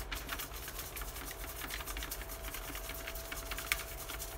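Paper entry slips rustling and rattling inside a plastic jack-o'-lantern bucket as it is shaken, a steady run of light, irregular clicks.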